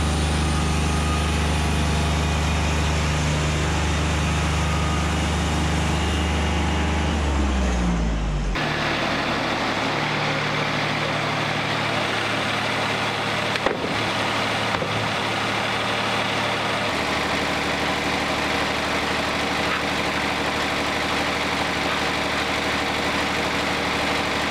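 Wood-Mizer LT40 sawmill's diesel engine running steadily under load as its band blade saws through a log. About eight seconds in, the engine tone rises briefly and the sound changes abruptly to a steadier, lighter hum.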